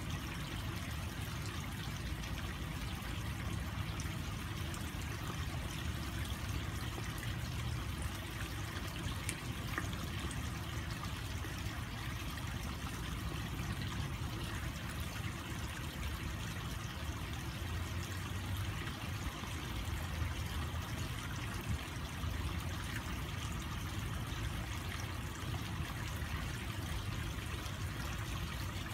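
Water steadily trickling and splashing into a garden koi pond, an even running-water sound with no breaks.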